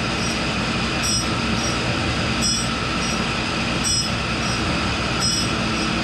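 1942 Cincinnati No. 2 tool and cutter grinder running, its grinding wheel working a steel chuck key with a steady rushing grind. A brighter, higher grinding sound swells about every second and a half.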